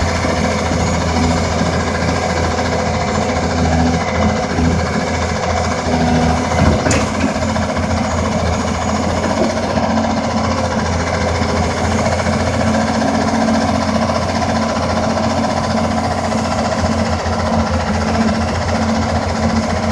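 Excavator with a boom-mounted rock drill attachment running steadily, its diesel engine and hydraulics working with a rapid mechanical rattle, and a single sharp knock about seven seconds in.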